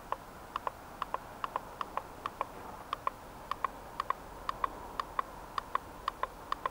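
Rapid short ticks, about three to four a second and unevenly spaced, from the buttons of Eachine EV800 FPV goggles being pressed over and over to step through bands and channels by hand. The goggles' search button is broken and they are not picking up the video transmitter.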